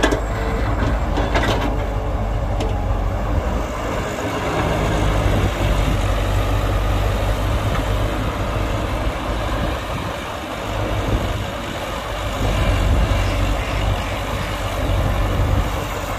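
Heavy earthmoving machinery's diesel engine running steadily, with a few sharp knocks in the first three seconds.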